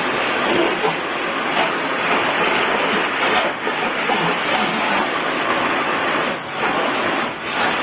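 Vacuum cleaner running with a steady rushing noise, dipping briefly twice near the end.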